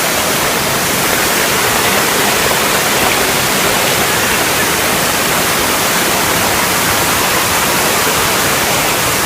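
Waterfall close by, a loud, steady rush of falling water.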